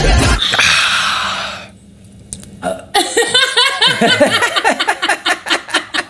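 A low thump and a brief rushing swish, then after a short pause laughter in quick, even pulses from about three seconds in.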